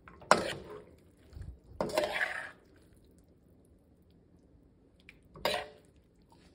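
Metal spoon stirring saucy cauliflower and vegetables in a stainless steel pan: three short strokes of the spoon against the pan, just after the start, at about two seconds, and near the end.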